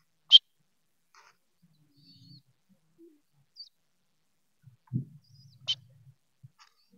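Two short, sharp chirps on a pigeon-training whistle, one just after the start and one near the end, whistling the caged pigeons to respond to the food held out to them. A low thump comes just before the second chirp.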